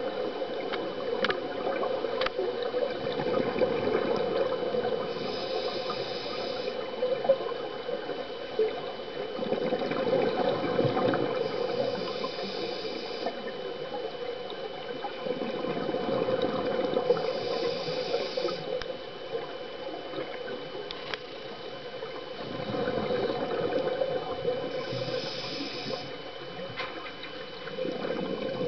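Scuba breathing heard underwater: the regulator's short hissing inhale and a longer bubbling exhale, repeating about every six seconds, over a steady hum.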